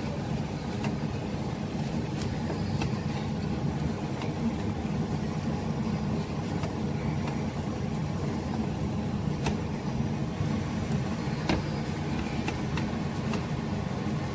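A steady low rumble, with a few faint clicks and taps scattered through it as a wooden spatula stirs rice in a steel cooking pot.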